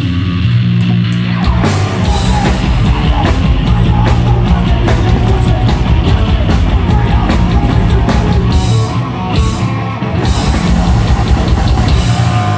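Hardcore band playing live at full volume: distorted guitars, bass and drums, with a short break about nine seconds in before the band comes back in.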